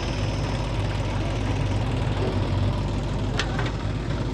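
Heavy diesel engine running steadily, with two short sharp clicks about three and a half seconds in.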